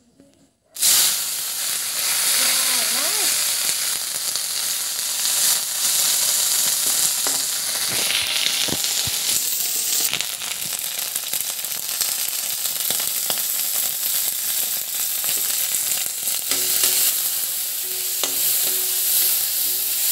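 Ingredients dropped into hot oil in a metal wok about a second in, starting a loud, steady sizzle as they fry.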